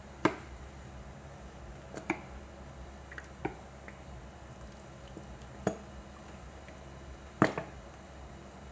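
Plastic squeeze bottle of chili sauce squirting and spluttering as it is squeezed, in about five short, sharp spurts a second or two apart; the bottle is nearly used up.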